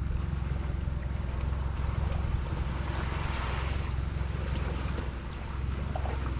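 Wind rumbling on the microphone and waves slapping against a small boat's hull on open water, with a louder wash of water about halfway through.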